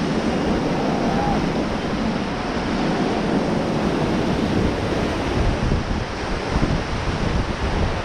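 Steady rush of whitewater rapids churning around an inflatable raft, with wind buffeting the microphone.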